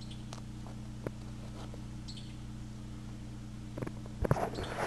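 Quiet background with a steady low hum, over which come a few faint clicks and soft rustles from fingers handling a squash blossom, growing louder near the end.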